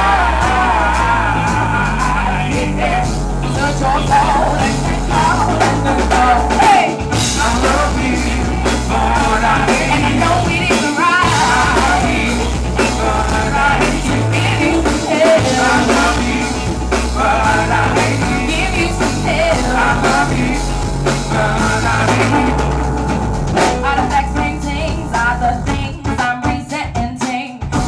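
Live band playing: a woman sings a wavering melody into a microphone over drum kit, bass, keyboards and electric guitar.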